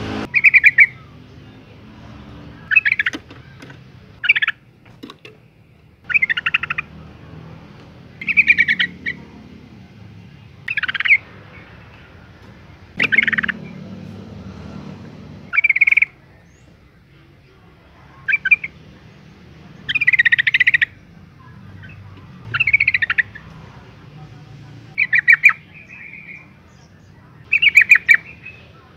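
Yellow-vented bulbul calling: short chattering phrases of quick notes, each under a second, repeated every two to three seconds. Billed as the call of a female in breeding condition calling to a male.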